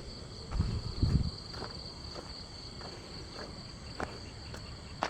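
Steady high-pitched chorus of crickets and other night insects, with a few low thumps in the first second and a half and faint scattered clicks after.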